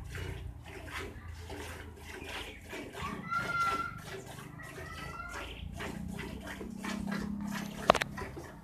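A cow being milked by hand: jets of milk squirting into a steel pail in a steady rhythm. A short high-pitched call sounds twice in the middle, and a single sharp knock comes near the end.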